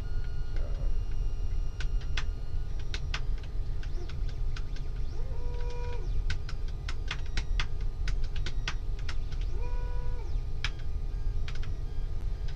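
Keys on a Redragon K631 mechanical keyboard clicking in irregular runs as they are pressed, over the steady running of a 3D printer whose stepper motors whine briefly twice, each whine ramping up, holding and dropping away.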